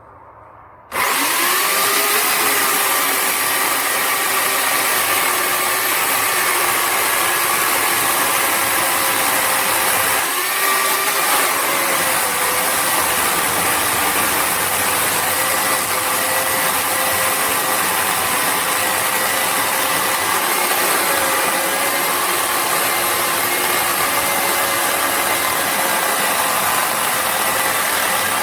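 WEN CP1518 corded 15-amp electric chainsaw switching on suddenly about a second in and running steadily with a high whine. Its pitch dips briefly about a third of the way through.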